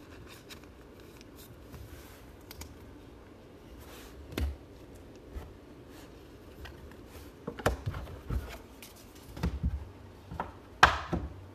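Trading cards and foil packs being handled at a table: soft rubbing, shuffling and light clicks. Several louder knocks come in the second half, the sharpest near the end.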